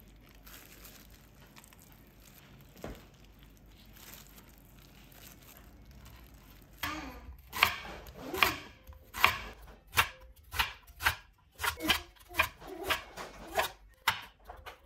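Chef's knife cutting leek and carrots on a wooden cutting board: crisp knife strokes at about two a second, starting about seven seconds in after a quiet stretch.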